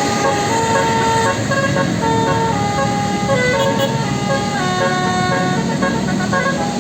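Bus 'telolet basuri' musical horn playing a tune of held notes that step up and down in pitch, over a steady vehicle rumble.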